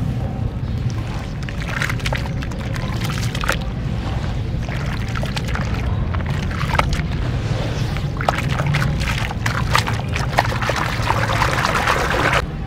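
Hands squeezing and crumbling wet sand in foamy water in a plastic basin: squelching and sloshing with scattered crackles, which grow denser near the end before the sound cuts off suddenly.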